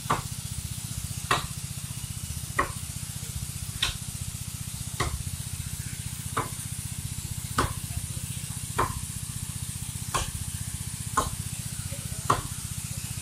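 Hand axe chopping into a tree trunk, a steady rhythm of single blows about one every second and a quarter, over a steady low hum.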